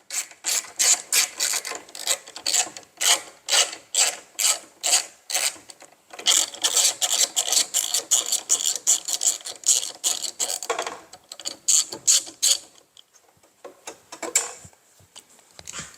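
Ratcheting driver with a T20 Torx bit clicking as it backs out a bolt on a miter saw: a steady run of ratchet clicks that quicken about six seconds in, then thin out and die away around thirteen seconds.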